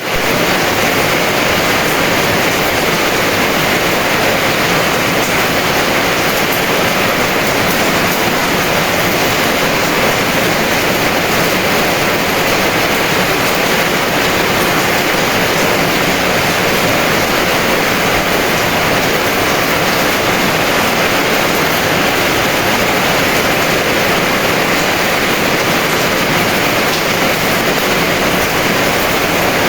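Heavy rain pouring steadily, an even, unbroken noise that does not rise or fall.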